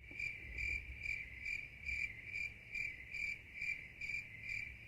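Crickets chirping as an edited-in sound effect, a steady high trill pulsing about twice a second over a low hum. It starts abruptly out of dead silence, the classic 'crickets' cue for an awkward silence.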